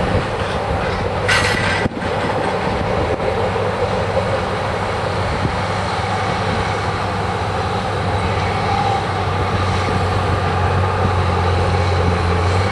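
Freight train cars rolling past, with a brief high screech about a second in. After a sudden break just before two seconds, a steady low engine drone that grows louder near the end: a farm tractor pulling a corn planter.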